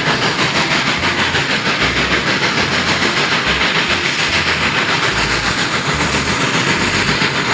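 Steam-train sound from a classic toy train: a continuous loud steam hiss and chuffing, with a low pattern underneath that shifts every half second or so.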